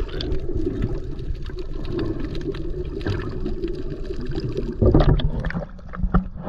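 Water sloshing and gurgling close around the camera, with many small clicks and crackles throughout, and a louder rush of water about five seconds in.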